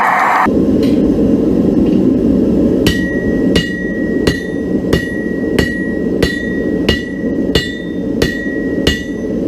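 Blacksmith's hammer striking iron on an anvil: about ten evenly paced blows starting about three seconds in, each leaving a high ringing tone from the anvil. A steady low rushing noise runs underneath.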